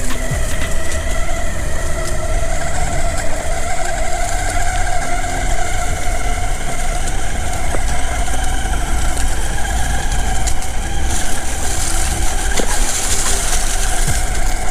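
Electric skateboard motors on an Exway Atlas 4WD whining at a steady, slightly wavering pitch under load while climbing a steep hill, over a constant low rumble and hiss. The hiss grows brighter about eleven seconds in.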